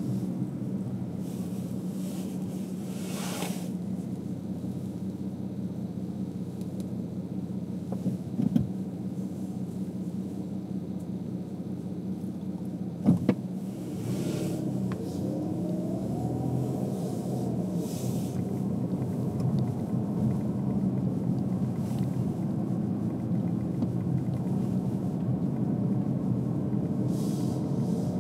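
Car being driven: a steady low drone of engine and tyres, with two short knocks, the second louder, and a whine that rises in pitch about halfway through.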